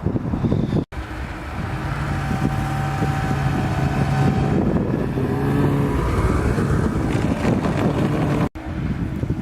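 A motor vehicle's engine running and passing by, with wind noise on the microphone; the sound breaks off abruptly about a second in and again near the end, where the shots change.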